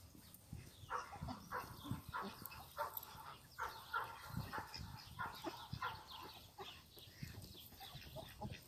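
A flock of domestic ducks and geese calling softly while they graze: short, irregular quacks and low honks, several a second.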